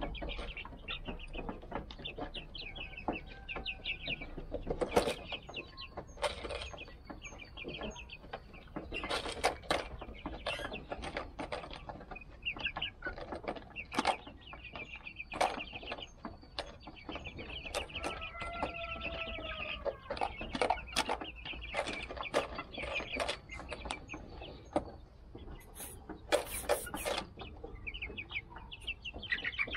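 A flock of 55-day-old Silver Laced Wyandotte chicks peeping in rapid high trills, among scattered sharp clicks and scuffs. A lower drawn-out call comes a little past the middle, and a brief rustling burst comes near the end.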